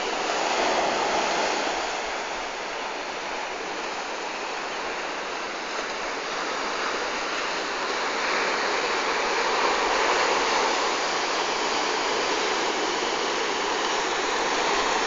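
Sea surf: waves breaking and washing up a sandy beach, a steady rush of noise that swells about a second in and again from about eight to eleven seconds.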